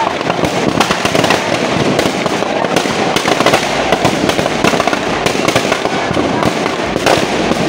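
Firecrackers packed inside burning Ravana effigies going off in a dense, unbroken crackle of pops and bangs.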